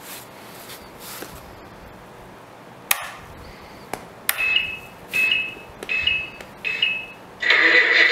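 Power-up of an RC truck and its Futaba T10J radio: two switch clicks, then four short electronic beeps in a row. Near the end a loud, steady electronic sound starts and keeps going.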